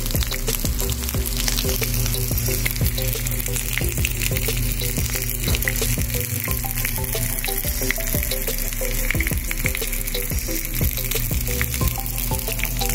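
Whole galunggong (round scad) sizzling steadily in hot oil in a frying pan, with many small crackles and pops, as they fry to a crisp.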